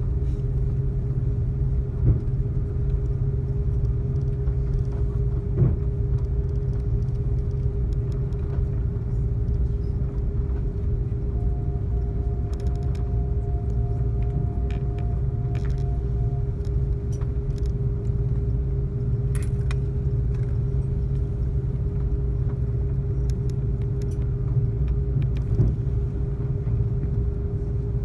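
Cabin noise of an Airbus A330-200 taxiing after landing: a steady low rumble of engines and rolling wheels with a constant hum, and a few brief soft thumps.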